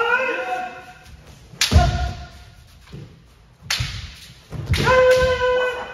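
Kendo practice: kiai shouts, a rising yell at the start and a long held shout near the end, with sharp cracks of bamboo shinai striking and heavy foot stamps about a second and a half in and again near the middle.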